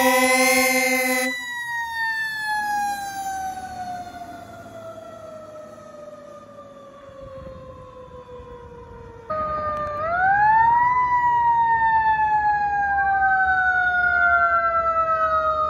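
Fire engine air horn blasting for about a second, then a mechanical siren (a Federal Q) winding down in one long falling wail. After an abrupt change, sirens wail up quickly and fall slowly, two siren tones overlapping in the later part.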